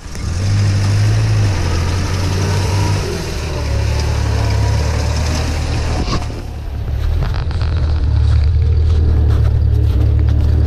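UAZ-452 van's engine running under load as it crawls past over soft snowy bog, a loud low drone that shifts slightly in pitch as the throttle changes.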